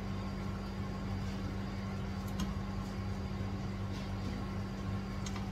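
A steady low machine hum, like a fan or appliance motor, with a couple of faint light clicks as fish is laid into the pan.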